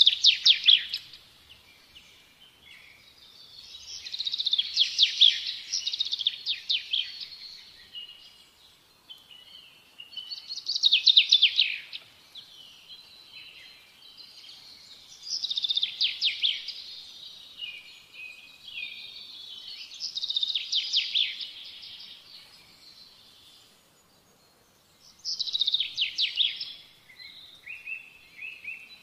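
A songbird singing: six phrases of rapid, high trills and chirps, each a second or two long and coming about every five seconds.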